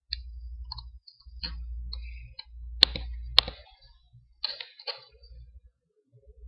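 A few sharp clicks, two of them louder and about half a second apart near the middle, among soft taps and a low rumble of handling close to the microphone.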